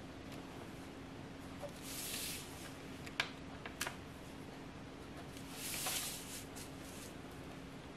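A clear plastic ruler sliding and being set down on a primed board while a pen draws grid lines along it: two soft swishes, about 2 s and 6 s in, and a couple of sharp clicks around 3 to 4 s, over a steady low hum.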